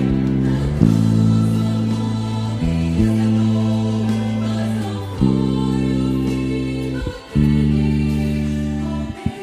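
Church hymn music: a choir singing held chords over a strong low bass line, the chords changing every second or two, with a brief break a little after seven seconds.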